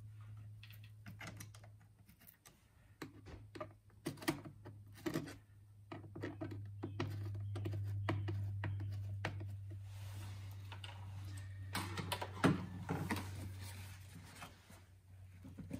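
Irregular plastic clicks, taps and knocks of hands working the engine-bay covers and their clips loose, over a steady low hum that grows louder in the middle.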